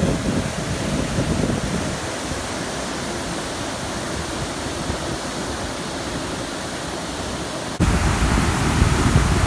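Water rushing through the raised gate of a river dam's spillway: a steady roar of falling water that suddenly jumps louder about eight seconds in.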